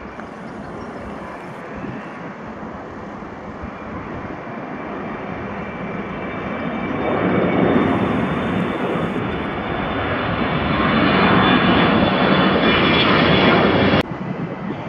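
Twin-engine jet airliner climbing out at takeoff thrust: a jet roar with a high whine that swells as it passes overhead, louder about halfway through and loudest near the end. The roar cuts off suddenly just before the end.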